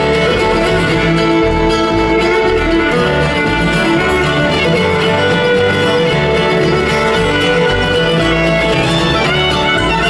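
Live country band playing an instrumental passage over a steady bass beat.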